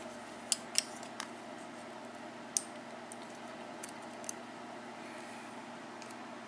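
Scattered light clicks and ticks, about six of them, from small parts and tools being handled while the upper pins and springs are worked out of a disassembled 5-pin mortise lock cylinder.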